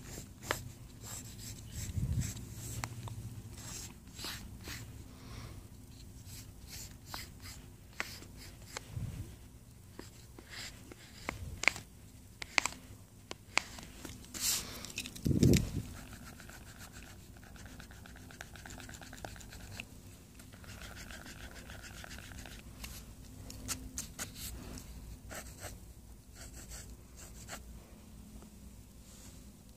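Pencil scratching on sketch paper in short, irregular strokes, with a few dull thumps, the loudest about halfway through.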